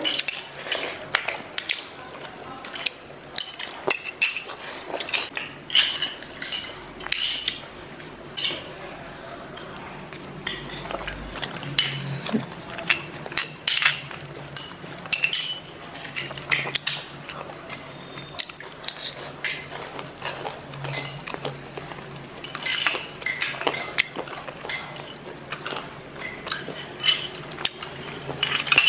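Metal spoons clinking and scraping against small ceramic bowls as several people eat, in irregular taps with a short lull about ten seconds in.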